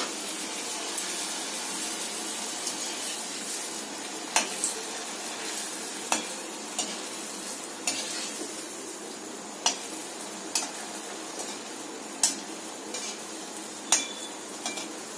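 Chhena dough pieces frying in hot oil in a steel kadai with a steady sizzle, while a perforated steel slotted spoon stirs them and clinks sharply against the pan about six times.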